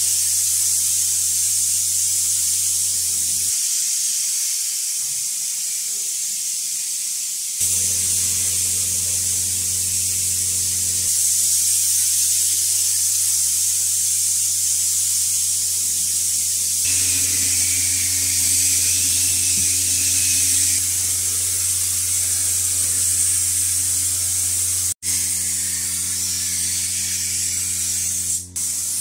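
Compressed-air paint spray gun hissing continuously as it sprays paint onto bamboo, with a steady low hum underneath.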